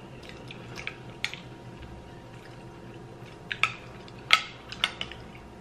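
Metal spoons clicking and scraping in a glass baking dish as they scoop a soft, jellied beetroot mock blood pudding, with wet, squishy eating sounds. There are a few short, sharp clicks, the loudest about three and a half to five seconds in.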